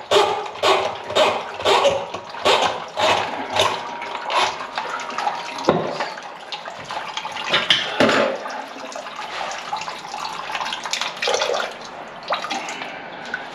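Greasy drain water splashing and dripping into a bucket under a kitchen sink drain as a drain auger cable is worked out of the pipe, with short splashes about twice a second at first, then irregular ones.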